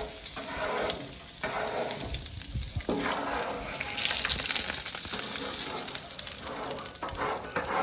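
Hot flat-top griddle sizzling while it is scraped clean of bacon grease, the hiss swelling about halfway through.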